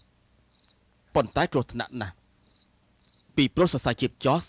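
Crickets chirping in short repeated trills, about one to two a second, behind two short lines of spoken dialogue.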